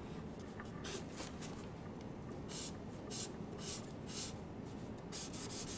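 Grayscale art marker stroking across drawing paper: a run of short, quick scratchy strokes in small irregular groups with brief pauses, as an area is shaded with hatching.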